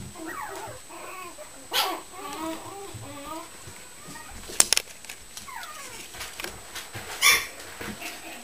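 Puppies whining in many short calls that bend up and down in pitch as they play. A sharp double knock comes about four and a half seconds in, and a short harsh burst comes near the end.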